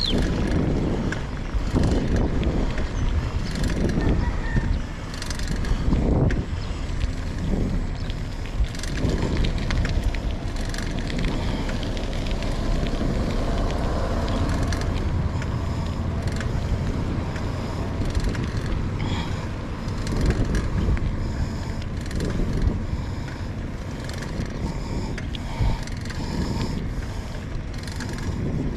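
Wind buffeting the microphone over the steady rumble of a vehicle on the move, rising and falling in gusts.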